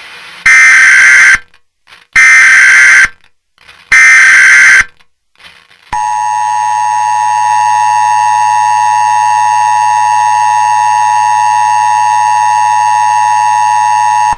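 Emergency Alert System SAME header: three loud bursts of harsh, buzzing data tones, then about six seconds in the steady two-tone EAS attention signal starts and holds.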